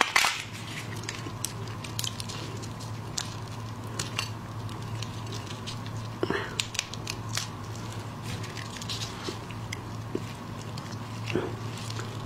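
Shell of a large red prawn crackling and clicking as it is peeled apart by plastic-gloved hands, in scattered sharp clicks over a steady low hum.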